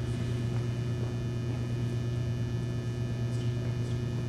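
Steady low electrical mains hum with a faint buzz above it, unbroken throughout.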